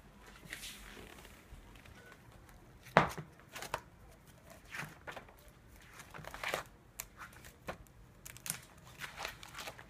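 Pages of a spiral-bound lathe manual, held in clear plastic sleeves, turned by hand: a string of irregular crinkling rustles, with the sharpest and loudest about three seconds in.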